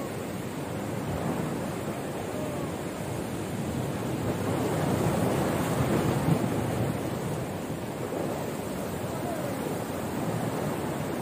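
Sea surf washing against a rocky shore, a steady rush that swells louder about halfway through, with wind buffeting the microphone.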